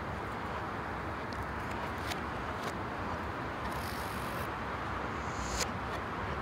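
Steady rushing noise in a tiled cycle tunnel, with a few faint clicks, a brief hiss about four seconds in and a sharp click near the end.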